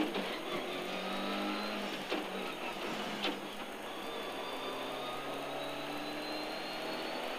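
Subaru rally car's turbocharged engine heard from inside the cabin, pulling steadily with a high whine that rises slowly in the second half and a few sharp knocks from the car. Along with it runs a humming noise that the crew take for a tyre rubbing, or maybe the turbo.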